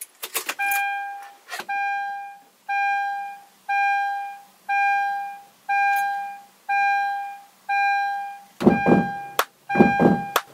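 A car's electronic warning chime, one clear tone repeating about once a second, each note fading away, set off by the key in the ignition. Near the end, louder noisy sounds come in over the chime.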